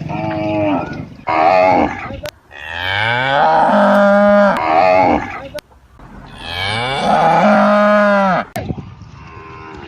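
Cattle mooing: two short moos, then two long, drawn-out moos that rise in pitch and then hold steady.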